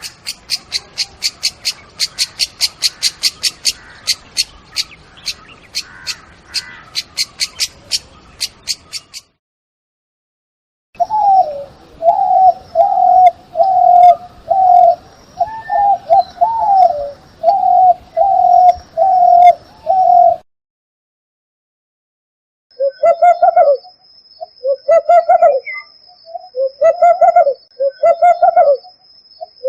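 Bird calls from three different birds, one after another. First a fast series of high-pitched chirps, about four a second. Then a run of lower repeated notes, and after a short gap, short low calls every second or two.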